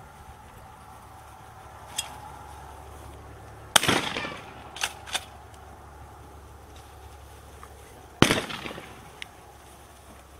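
Two shotgun shots about four and a half seconds apart, each with a short rolling echo. A couple of fainter cracks follow the first shot.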